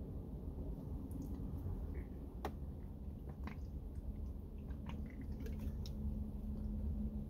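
A person drinking milk from a plastic bottle: a few small clicks and faint swallowing sounds.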